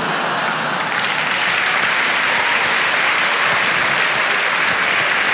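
Theatre audience applauding steadily, with the clapping building over the first second.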